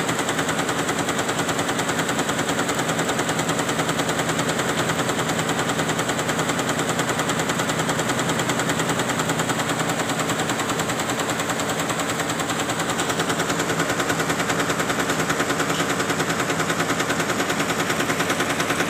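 Tajima 20-head embroidery machine stitching, its needles hammering up and down in a rapid, steady, even clatter.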